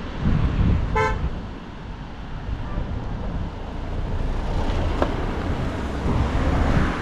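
A vehicle horn gives one short toot about a second in, over a steady low rumble of wind and road noise.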